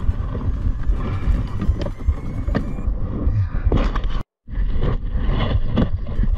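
Wind rumbling on the microphone over open sea, with scattered clicks and knocks of handling. The sound drops out completely for a moment a little past halfway, at a cut in the footage, then the wind resumes.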